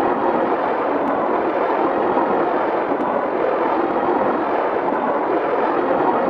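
Steady rushing noise with no pitch or rhythm, most of it in the midrange, holding an even level.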